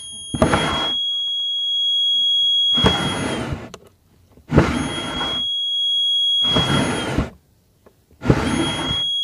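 A piezo buzzer in a light-triggered (LDR) drawer alarm gives a steady, piercing high tone while the drawer is open and cuts off when it is shut. The tone sounds three times, with a pause of about a second between. Each time the desk drawer is slid open or pushed closed, there is a loud, short scrape.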